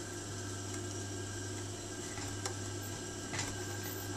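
Singer 331K4 industrial sewing machine with its motor running in a steady low hum, broken by a few separate sharp clicks from the machine.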